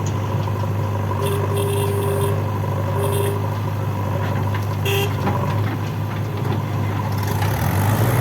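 Heavy diesel engine running steadily, with three short horn toots: one about a second long, then two brief ones. The engine picks up slightly near the end.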